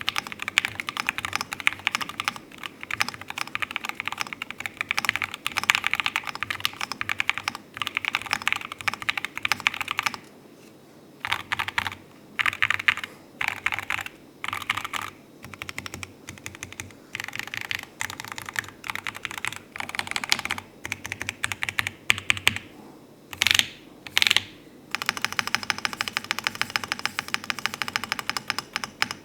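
Custom Dusk67 65% mechanical keyboard with AKKO Rosewood linear switches on a carbon-fibre plate, with an opened silicone dampening pad, being typed on quickly. Runs of rapid keystrokes break off briefly about ten seconds in and return in shorter bursts, with two louder single strokes about three-quarters of the way through before fast typing picks up again.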